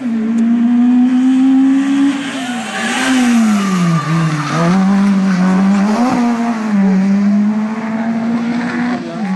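Rally car engine driven hard through a bend. The note falls as the car slows into the corner, picks up again as it accelerates out about six seconds in, then holds steady.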